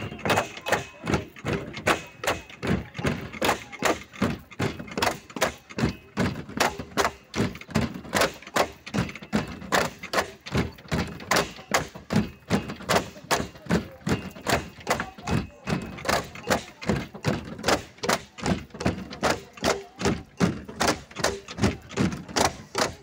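Long bamboo poles being knocked on their floor supports and clapped together in a steady, quick rhythm of hollow wooden knocks, about two to three a second, keeping time for Mizo Cheraw bamboo dancing.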